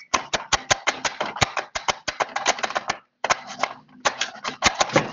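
Rapid, irregular typing clicks on a keyboard, in quick runs with brief pauses about three and four seconds in.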